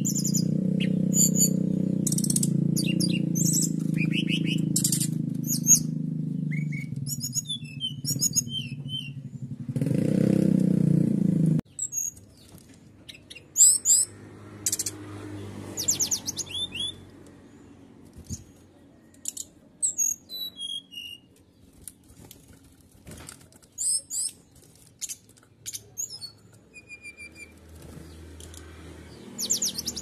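Domestic canary singing: fast chirps and rapid trills, broken into phrases with short pauses. A loud low steady hum runs under the first twelve seconds or so and cuts off suddenly.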